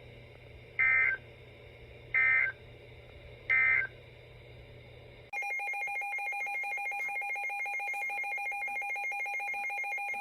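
Emergency Alert System data tones: three short buzzing bursts about a second and a half apart, the end-of-message code that closes an alert. About five seconds in, a steady, rapidly trilling alert tone begins and holds.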